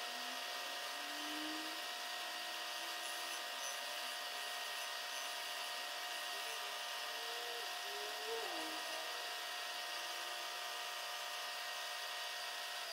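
Milling machine spindle running steadily as an end mill takes a light cut in an aluminum casting, a continuous motor whine with a wavering lower cutting tone.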